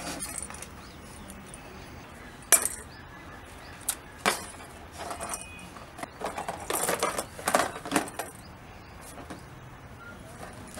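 A few sharp clicks and clinks as a plastic box is dug out of dry earth and handled, then a couple of seconds of cloth rustling and scraping as it is wrapped in a cloth bag.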